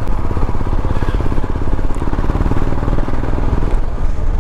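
Motorcycle engine running steadily under way, heard from the rider's seat, with a rapid even beat of firing pulses over a low rumble.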